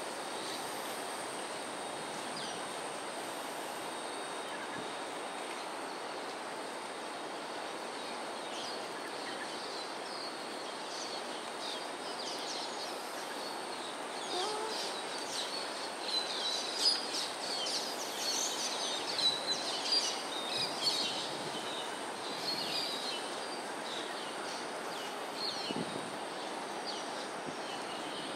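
A flock of small birds calling in many short, high chirps over a steady background hiss. The chirping builds from about nine seconds in, is busiest a little past the middle, and thins out later.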